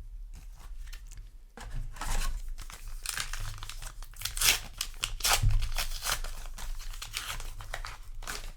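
Foil trading-card booster pack being torn open and its wrapper crinkled: a run of crackling, rustling tears, with low handling bumps underneath.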